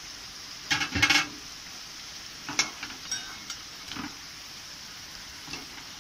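Fried potatoes sizzling steadily in oil in a kadai while a spatula scrapes and clatters against the pan, lifting them out; the loudest clatter comes about a second in, with three lighter knocks after it.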